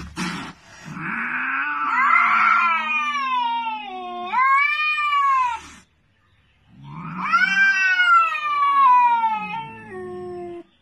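Domestic cat yowling: two long, drawn-out wails about a second apart. The first wavers and falls in pitch; the second rises and then slowly sinks. It is a warning yowl at another cat during a standoff.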